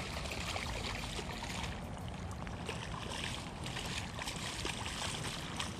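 Shallow water lapping and sloshing steadily at a sandy shoreline, with light splashing in the shallows.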